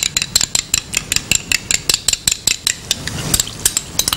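Spoon rapidly clinking against a glass bowl, about seven quick, even taps a second, as yogurt is beaten smooth before it goes into the pan.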